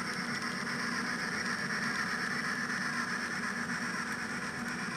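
Model trains running on the layout's track, led by a model Western Maryland steam locomotive: a steady rolling noise of wheels and motors.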